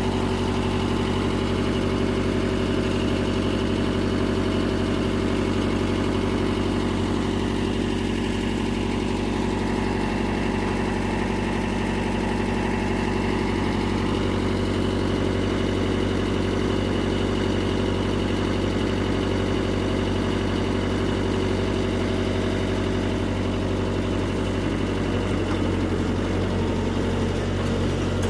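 Mitsubishi MS030 backhoe's diesel engine idling steadily.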